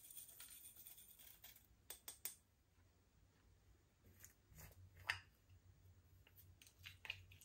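Slime being mixed and pressed, giving scattered faint sticky clicks and crackles, the sharpest about five seconds in.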